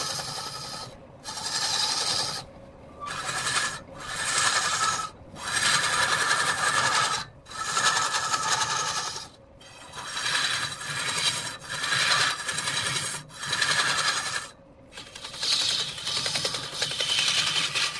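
Sandpaper pressed by hand against a wooden workpiece spinning on a lathe, rasping in repeated strokes roughly once a second with brief gaps between them, over the steady hum of the lathe.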